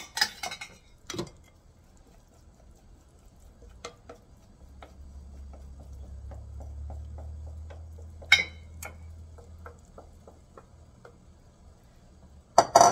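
Light clinks and taps of a knife against a metal pot lid as dumpling batter is spread on it. A run of soft, evenly spaced ticks sits in the middle, with one sharper clink and a louder clatter near the end.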